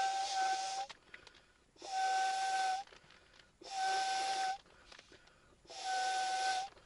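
Air rushing through the valve of an inflatable sleeping pad in four bursts about a second long, roughly two seconds apart, each with a steady whistling tone: the pad being blown up.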